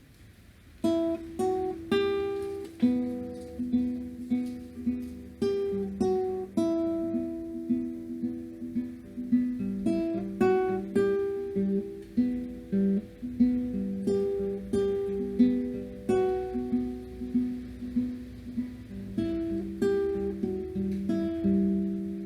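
Instrumental acoustic guitar music: plucked notes and chords in a steady flowing pattern, starting about a second in.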